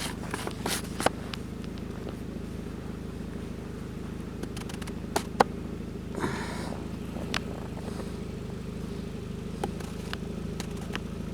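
Steady low hum of an idling engine, with scattered sharp clicks throughout.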